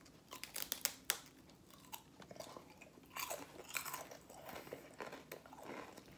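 A person biting into a large wavy potato chip and chewing it: a quick run of sharp crunches in the first second, then more crunchy chewing from about three seconds in.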